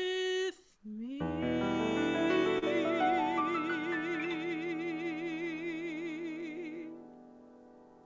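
Closing phrase of a solo song in classical style: the singer slides up into a long final note with wide vibrato, held over a sustained accompanying chord. The note ends about seven seconds in and the chord dies away.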